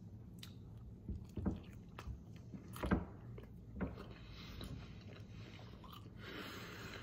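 A person chewing a mouthful of bacon cheeseburger close to the microphone, with a few separate short wet chewing and crunching sounds in the first four seconds. A brief hiss comes near the end.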